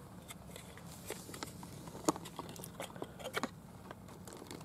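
Small items being handled and unpacked from a gift box: scattered faint clicks and light rustles, with a sharper click about two seconds in, over a steady low hum.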